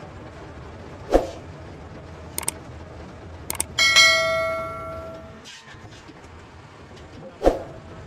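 Subscribe-button animation sound effect: a pop, two quick pairs of mouse clicks, then a bell ding that rings out and fades over about a second and a half, and a second pop near the end, over a steady low background hum.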